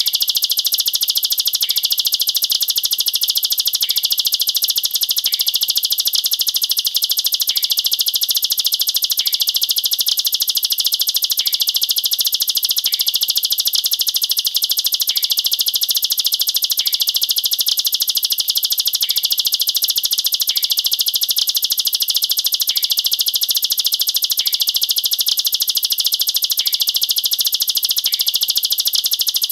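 Ciblek sawah (prinia) song used as tutor song for young birds: a continuous, dense, rapid high trill, the fast 'nembak rapat' (tight shooting) delivery. A short faint note repeats about every one and a half to two seconds.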